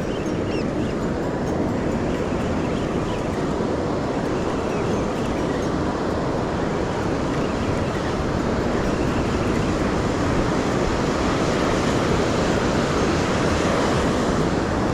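Steady rushing of beach surf and wind, without a break.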